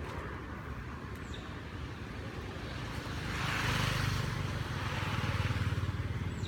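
A motor vehicle's engine running with a low rumble, growing louder about three seconds in as it passes.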